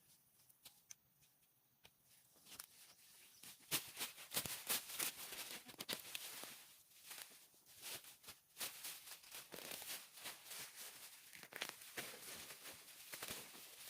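Irregular rustling and scraping with many light clicks and knocks, starting about two and a half seconds in after a nearly quiet opening.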